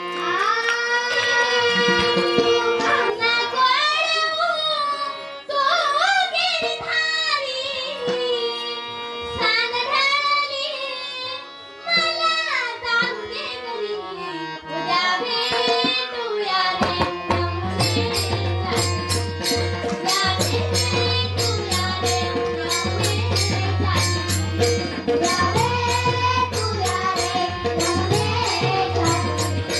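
Music: a gliding, ornamented melodic line over a steady drone. About halfway through, drums join with a fast, dense beat.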